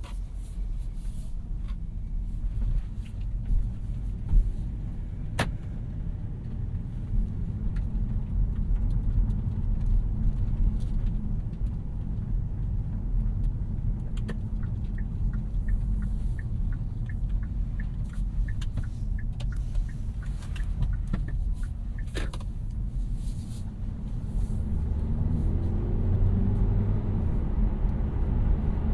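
A 2018 Kia Niro 1.6 GDi Hybrid being driven, with a steady low road and tyre rumble. A run of light, evenly spaced ticks lasts several seconds in the middle, and a faint rising tone comes near the end.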